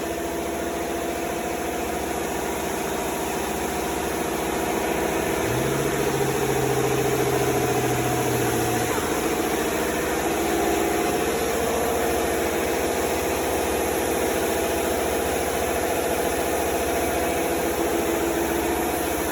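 Steady hum of shop machinery running on, such as a dual-action sander or shop air equipment. A lower tone joins for a few seconds near the middle, and the sound grows slightly louder from about five seconds in.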